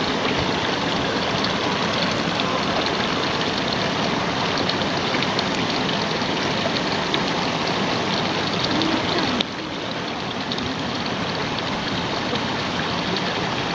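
Water gushing from a pipe outlet into a shallow ditch, a steady splashing rush of water. It drops suddenly to a slightly lower level about nine seconds in.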